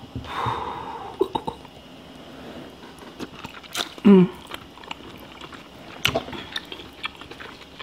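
Close-miked eating sounds: a person biting into and chewing sauced seafood meat, with wet mouth clicks and smacks throughout. A short hummed voice sound comes about four seconds in.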